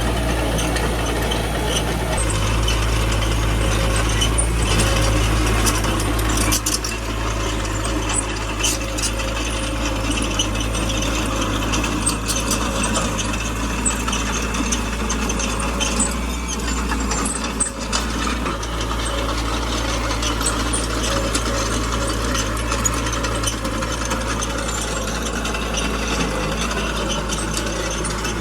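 Small bulldozer's diesel engine running steadily while its steel tracks and undercarriage clank and rattle with many sharp clicks as it works.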